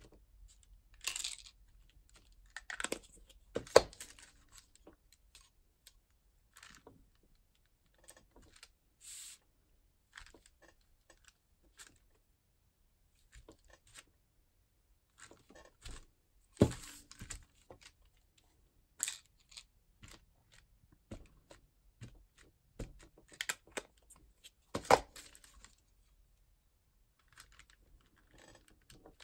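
Scattered taps, clicks and paper rustles of hand stamping: a clear acrylic stamp block and plastic ink pad cases set down and handled on the table and paper sheets shifted, with a few sharper knocks spread through and quiet gaps between.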